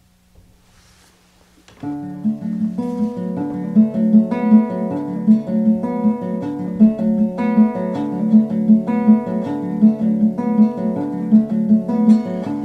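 Background music of plucked and strummed acoustic guitar in a steady rhythm, starting about two seconds in after a faint hum.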